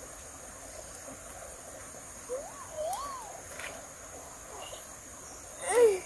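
Steady high chirring of crickets or other insects, with two short rising-and-falling calls around the middle and a louder falling call near the end.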